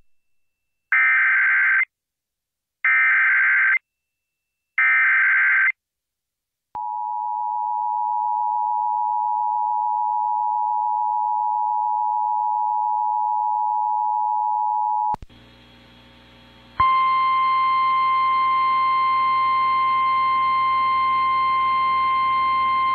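Emergency Alert System activation for a tornado warning: three short bursts of screeching data tones (the SAME header), then the steady two-tone EAS attention signal for about eight seconds. After a moment of faint hiss, the single steady NOAA Weather Radio warning alarm tone starts and runs on.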